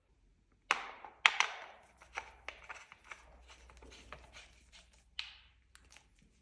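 An irregular series of sharp knocks and clicks, the loudest three coming close together about a second in, then lighter taps and another knock near the end.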